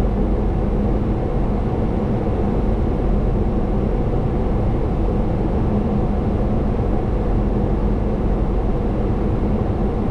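Steady cockpit noise of a Boeing 737-800 on short final approach: the rush of air over the flight deck with an even engine hum.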